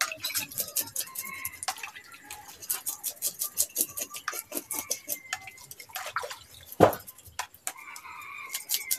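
A whole fish being washed by hand in a plastic basin of water: splashing and sloshing with many small clicks and drips, and one sharper knock a little before the end.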